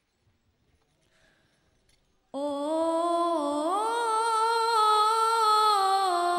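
About two seconds of near silence, then a boy's solo voice through a microphone begins a long, unaccompanied melismatic sholawat phrase. The line steps up in pitch partway through and then slowly sinks.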